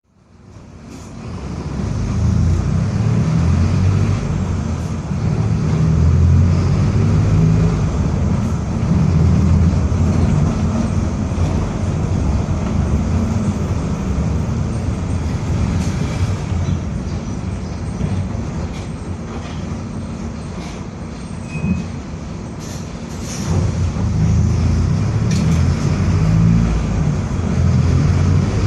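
Mercedes-Benz OF-1722M city bus under way: diesel engine and drivetrain running with a deep rumble and a growling differential, the noisy differential the bus is known for. The sound fades in over the first two seconds, eases off for a few seconds past the middle and builds again near the end, with a few short rattles.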